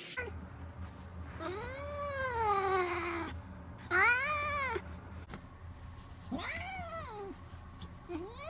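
A wet long-haired cat, just bathed, meowing loudly and plaintively: three long calls that rise and fall in pitch, the second short and loudest, and a fourth starting near the end.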